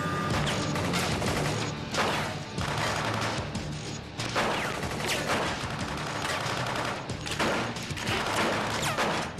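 Gunfight: rapid, repeated gunfire with shots in quick succession throughout, over background music.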